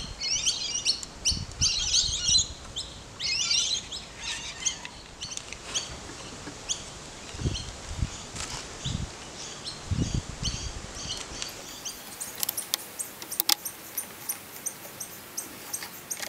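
Small birds chirping and twittering, loudest in the first few seconds, over low bumps of handling and a few sharp clicks near the end as the plastic throttle lever and housing are fitted on the mower handlebar.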